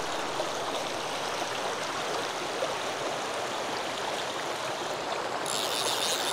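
River water running steadily, an even rush that does not let up, with a brief higher hiss near the end.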